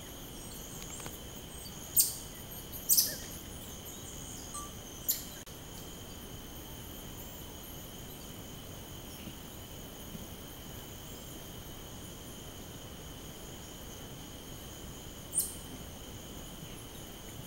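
Steady high insect chorus droning at two pitches. Over it come short, sharp, high chirps from an animal: three in the first five seconds and one more near the end.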